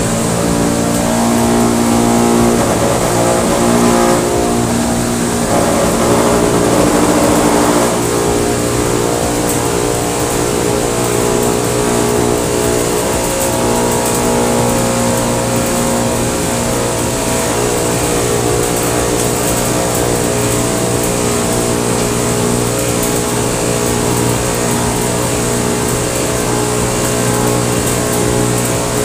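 Homemade cotton candy machine running at speed: its electric motor spins the heated spinner head with a steady hum and whine, over the hiss of the gas burner beneath the head. The pitch shifts a little in the first several seconds, then holds steady while sugar floss is spun out.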